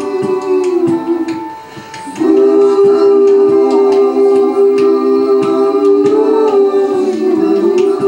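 Live music of sustained, layered wordless vocal tones, like humming or a held chord. The drone thins out and dips about a second and a half in, then returns and holds steady.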